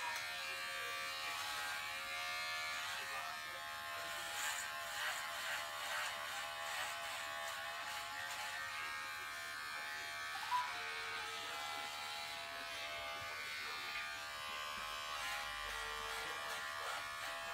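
Electric hair clippers running with a steady buzz as they cut a boy's hair very short.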